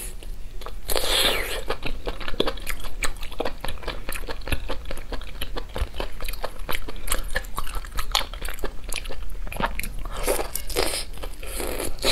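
Close-miked eating sounds: a person biting into and chewing a glossy, lightly pan-fried braised food, with many small, irregular wet clicks and smacks.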